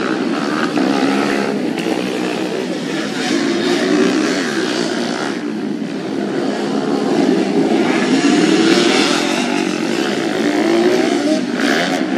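Dirt-bike engines revving on a dirt track, their pitch rising and falling again and again as the riders open and close the throttle.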